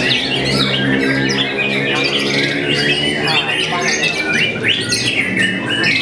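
Young white-rumped shama singing a rapid, varied song of short whistled and harsh squawky notes, over background music with sustained low chords.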